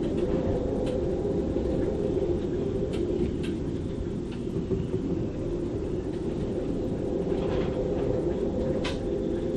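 Storm wind gusting over 35 knots through a sailboat's rigging, a steady howl with a deep rumble beneath it. A few sharp ticks stand out, about a second in, around three seconds in, and near the end.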